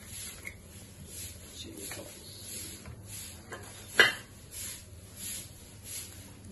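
Squeeze bottle of chilli sauce worked over a plastic bowl of paneer cubes: a series of soft squirting, rustling hisses about every half second to second as the sauce comes out, with one sharp click about four seconds in.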